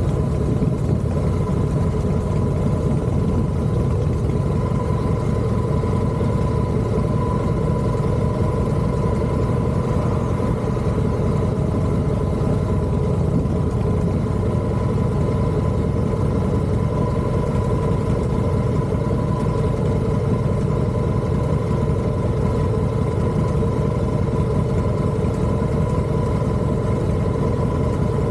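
Steady running noise of a moving vehicle: a constant low rumble with a thin, even whine above it, unchanging throughout.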